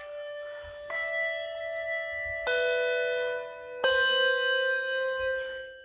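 Handbells being rung by an ensemble: three notes or chords are struck about a second and a half apart, each ringing on under the next, then dying away near the end.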